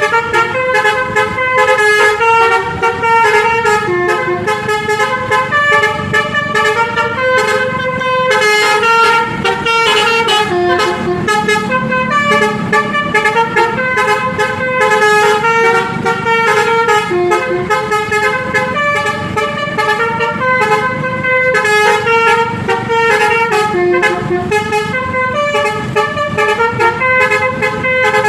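Basuri V3 multi-tone 'telolet' bus air horn playing a melody: a long run of held horn notes stepping up and down in pitch, over a steady low rumble.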